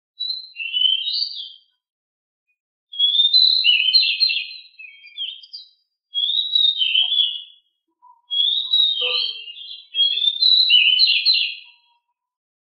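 Small songbird, the 'decu' of the title, singing a fast, busy song: five phrases of quick high chirps and trills, each one to three seconds long with brief pauses between them.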